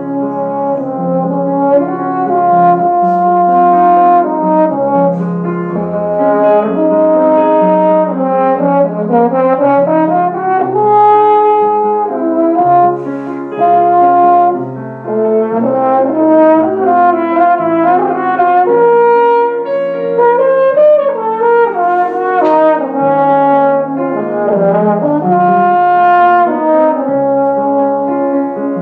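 French horn playing a melody of long held notes, with a few rising and falling runs, over piano accompaniment.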